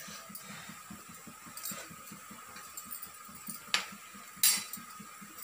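Steel cooking utensils clinking against a pot: a sharp clink just under four seconds in, then a louder, rattling metal clatter about half a second later, over a faint steady background.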